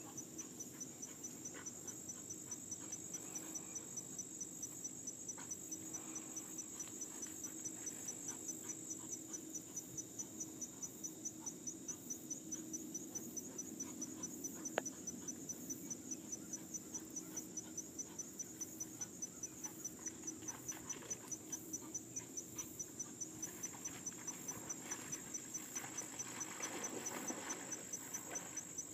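Insects chirping in an even, repeating pulse, a few chirps a second, over a steady high buzz. A single sharp click comes about halfway through, and there is a soft rustle near the end.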